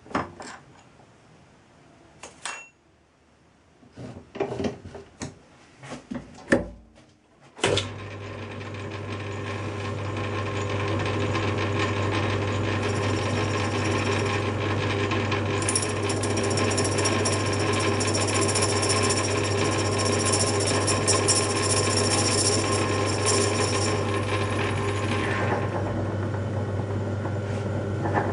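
A few clicks and knocks of handling, then a Myford lathe starts about eight seconds in and runs with a steady hum while a tool cuts a brass part held in a 4-jaw chuck. The cutting noise stops a few seconds before the end while the lathe keeps running.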